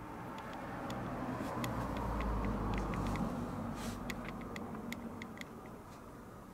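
A vehicle passing by: a low rumble that swells to its loudest two to three seconds in and then fades away, with a scatter of light ticks over it.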